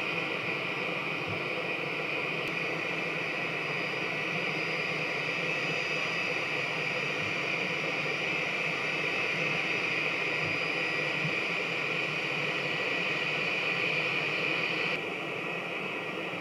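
Airbus A319 jet engines idling while the airliner taxis: a steady rushing hiss with a high whine on top. The level drops suddenly near the end.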